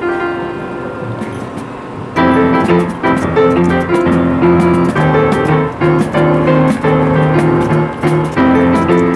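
Street piano being played: a softer passage, then about two seconds in the playing grows louder and fuller, with chords over a bass line.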